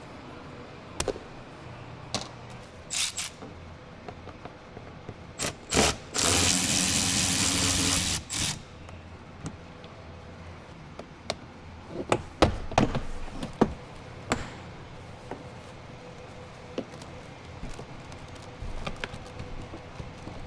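Hand work on a car door: scattered sharp clicks and knocks of tools and parts, with one dense noisy sound lasting about two seconds around six seconds in, and a run of knocks later on.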